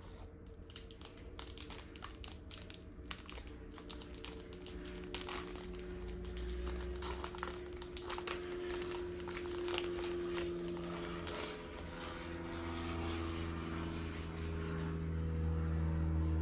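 Plastic crinkling and crackling as trading cards are handled and slipped into plastic card sleeves, with a steady low hum underneath that grows louder near the end.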